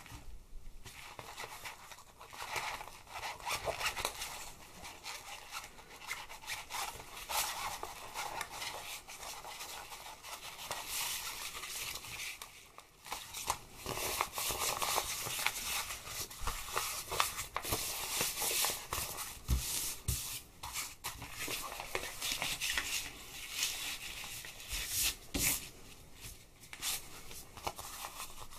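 Scissors cutting through thin plastic sheeting from a paddling pool, with the sheet crinkling and rustling as it is handled, and small clicks throughout.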